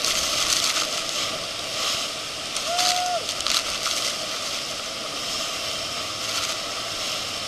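Heavy rush of the Iguazu Falls heard from right under them, spray and wind dashing against the microphone in sharp gusts. A short shout rises and falls about three seconds in.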